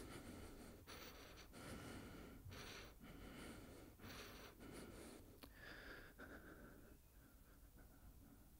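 A man's faint, quick breathing, a breath about every second, dying away over the last couple of seconds.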